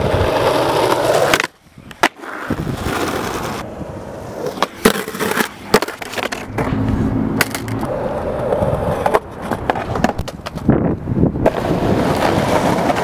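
Skateboard wheels rolling on concrete and asphalt, with several sharp clacks as the board is popped and lands during tricks. The rolling cuts out suddenly for a moment about a second and a half in, then resumes.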